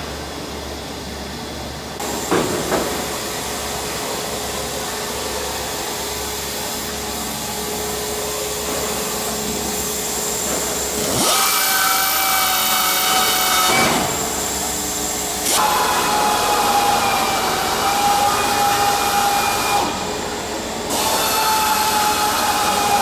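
A pneumatic hand drill runs in three bursts against an aluminium wing skin, starting about eleven seconds in, with a whine over a hiss of air. During the longer middle burst the pitch sags slightly. Before the first burst there is only a steady hum.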